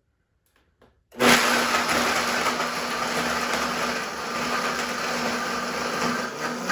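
Vitamix blender switched on about a second in, crushing ice with rum and piña colada mixer into a frozen slush, then running steadily with a constant low hum under the whirring.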